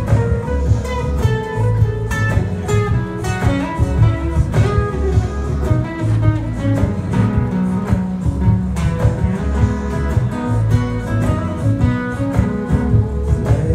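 Amplified acoustic guitar played through a PA in an instrumental passage: a busy run of picked and strummed notes over a full low end, with no singing.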